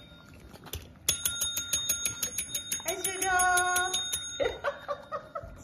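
Yellow desk call bell (tap bell) struck rapidly and repeatedly, several rings a second, for about three seconds starting about a second in.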